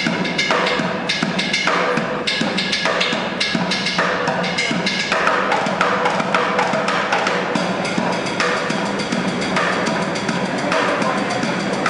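Drums played fast and without a break: a dense run of sharp stick strokes over lower drum hits.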